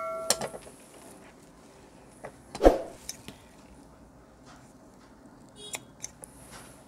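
Tailor's scissors cutting cotton blouse fabric on a cutting mat: scattered snips and metal clicks of the blades, with one louder thump about two and a half seconds in. A metallic ring from the scissors dies away at the start.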